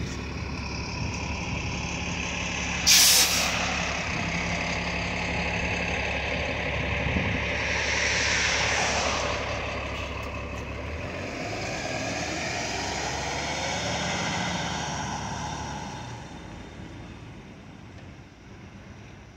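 New Flyer Xcelsior XD40 diesel city bus pulling away from a stop. About three seconds in, its air brakes let out a short, loud burst of hiss; then the engine runs and climbs in pitch as the bus accelerates, fading as it drives off.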